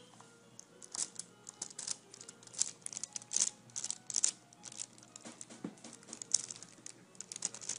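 Irregular crinkling and rustling of a gauze pad and nitrile gloves handled close to the microphone, a rapid scatter of small crackles starting about a second in.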